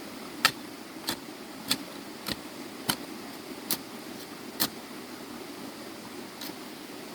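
A series of seven short, sharp knocks, about one every two-thirds of a second, that stop a little past halfway, over a steady low hum.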